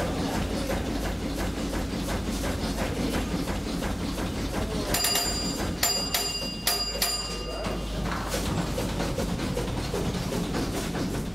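Ship's steam engine running with a steady rhythmic beat. About five seconds in, a small bell rings several times in quick succession over a couple of seconds.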